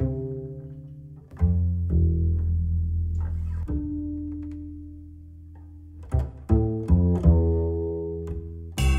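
Background music made of deep, low notes struck and left to ring, several at a time. The notes come thicker and louder near the end.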